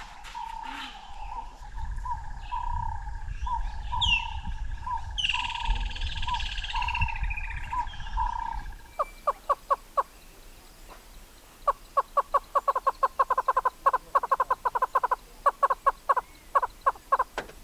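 Southern yellow-billed hornbill calling: runs of rapid, hollow clucks, several a second, in the second half. Before that, another bird repeats a short note about twice a second over a steady high drone and a low rumble, which stop abruptly about nine seconds in.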